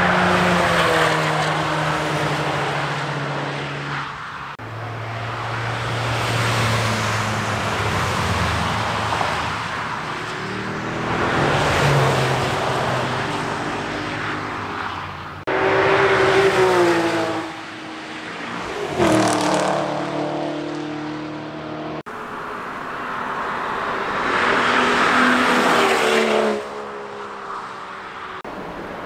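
Cars driving past at speed on a race circuit, one pass after another, their engines revving and rising then falling in pitch as each goes by. The sound jumps abruptly several times between separate passes.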